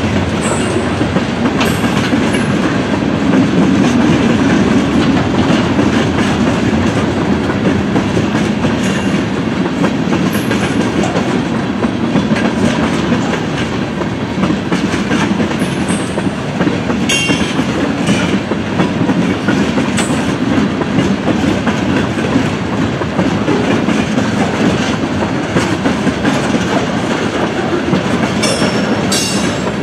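Freight train of tank cars rolling steadily past, the wheels clattering over the rail joints, with a couple of short high squeaks near the middle and near the end.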